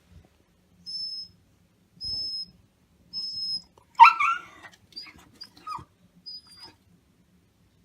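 Black Shiba Inu whining for its food: three short, high, whistle-like whines about a second apart, then a louder yelping cry about four seconds in, followed by a few shorter, higher whines.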